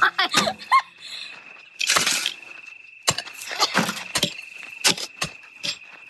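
Shovels and a pickaxe striking and scraping into hard soil: a run of separate strikes about half a second to a second apart, with a longer scrape about two seconds in.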